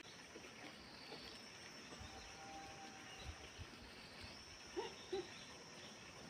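Faint open-air ambience with a steady high-pitched insect drone, and two short chirps about five seconds in.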